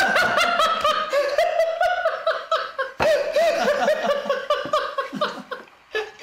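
Men laughing hard in a long run of pulsing bursts, with a catch of breath about halfway through. The laughter dies away near the end.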